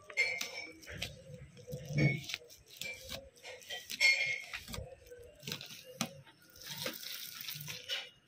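Hands handling a plastic sheet and leaf strips while rolling rice, with irregular crinkling, rustling and soft taps, and a few short high squeaks.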